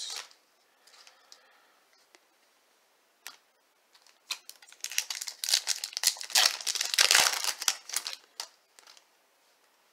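Plastic crinkling and rustling with small clicks as trading cards are handled, faint at first and then dense for about four seconds from around four seconds in.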